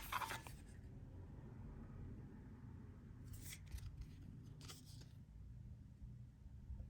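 Paper and packaging being handled: a crisp rustle at the start, then a couple of short, light rustles a few seconds in, over a low room hum.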